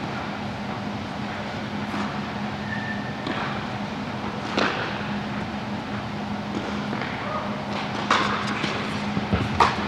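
Tennis balls popping off racket strings and bouncing on the court: a few sharp, separate hits spread over several seconds, the loudest near the end, over a steady low hum.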